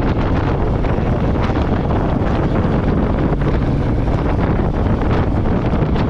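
Steady wind noise on the microphone from riding a Royal Enfield Meteor 350 at cruising speed, with the motorcycle's single-cylinder engine running underneath.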